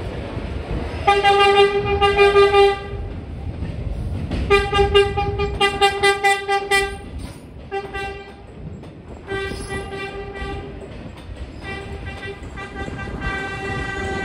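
New York City subway train horn sounding several blasts of different lengths on one steady tone, with a short toot in the middle, over the low rumble of the train running.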